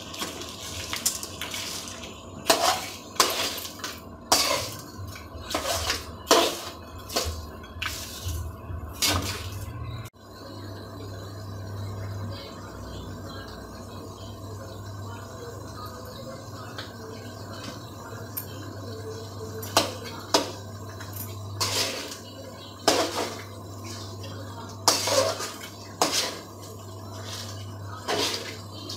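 Metal spoon scraping and clanking against an aluminium kadai while stirring chicken pieces, in runs of sharp strokes during the first ten seconds and again from about twenty seconds on. A steady low hum lies underneath.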